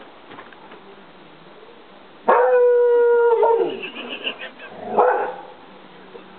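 English springer spaniel howling: one long, steady howl starting about two seconds in that slides down in pitch at its end, then a shorter call about five seconds in.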